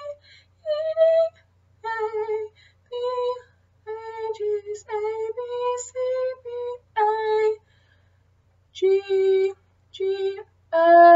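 A woman singing a sight-singing drill in solfège, one short held note after another. There is a pause of about a second near the end, then a few lower notes.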